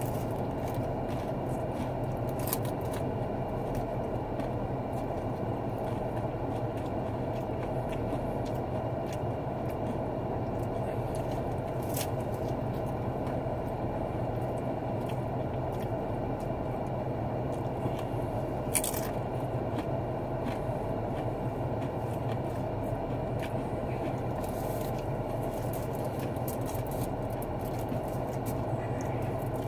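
Steady hum of a car's interior, with a handful of short crunches and clicks from eating a hard-shell taco.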